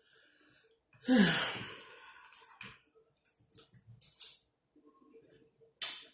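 A woman's voiced sigh, falling in pitch, about a second in. It is followed by scattered short smacks and clicks of eating, from mouth and fork, as she takes and chews a forkful of beans.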